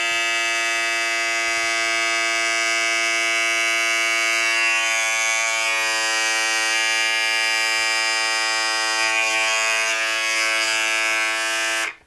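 Older Braun Series 5 electric shaver running with a steady, pretty loud buzz, switched off abruptly just before the end.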